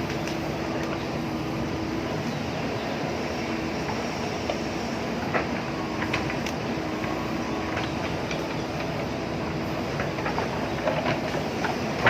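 JCB backhoe loader's diesel engine running steadily while digging, with a few sharp knocks scattered through, the loudest around the middle and near the end.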